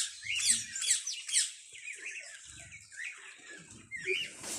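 Parrot giving a quick run of short, high chirping squawks, about three a second, in the first second and a half, then quieter chatter with a few scattered calls.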